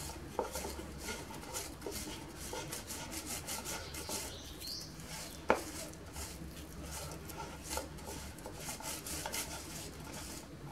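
Soft dough being grated on the coarse side of a handheld grater, pressed firmly through the holes in many short scraping strokes. One sharp click about five and a half seconds in.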